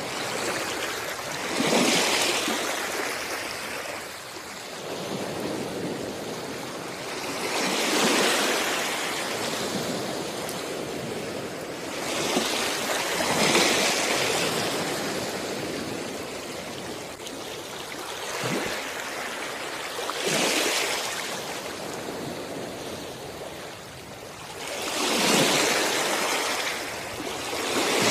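Sea waves breaking and washing up a beach, a rush of surf about every five to seven seconds with a steady hiss of moving water between.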